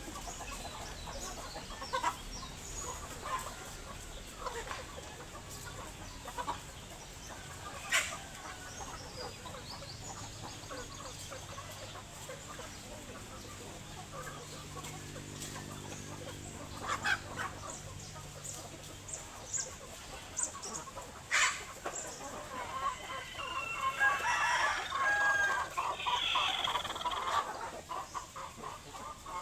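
Chickens clucking, with scattered short calls and a rooster crowing. A louder, drawn-out call comes near the end.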